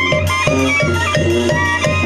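Live Mexican banda music: clarinets play the melody over snare drum and cymbal strokes, with trumpets and a deep brass bass line keeping a steady beat.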